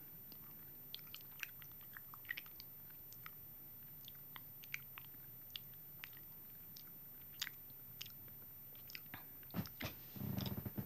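Chewing honeycomb close to the microphone: faint, scattered wet clicks and smacks, with a louder spell of chewing near the end.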